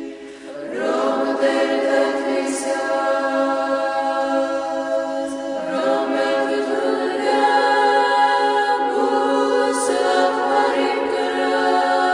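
Unaccompanied choir singing slow, long-held chords over a steady low note, with a new phrase beginning about a second in.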